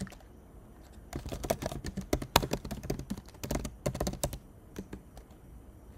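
Typing on a computer keyboard: a run of quick key clicks that starts about a second in and thins out to a few single taps near the end.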